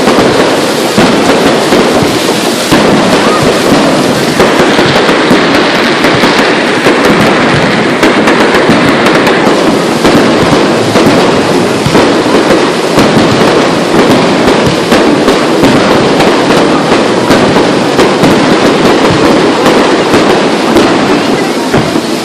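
Fireworks going off in rapid succession: a loud, dense, unbroken run of bangs and crackles.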